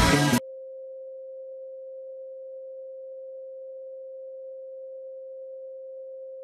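Background music cuts off abruptly under half a second in, leaving a single steady electronic pure tone, like a test tone, that holds one pitch without change.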